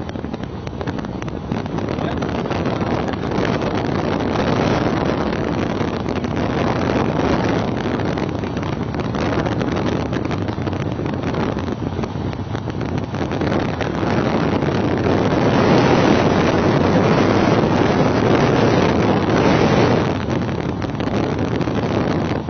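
Loud rush of wind on the microphone from filming out of a moving car's open window, mixed with road and engine noise; it swells louder for a few seconds partway through.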